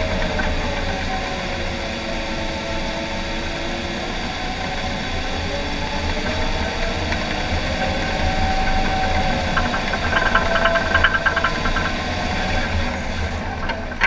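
John Deere 750K crawler dozer's diesel engine running while the blade pushes dirt, its pitch rising and falling a little, over a steady low rumble. A quick rattle stands out about ten to eleven seconds in.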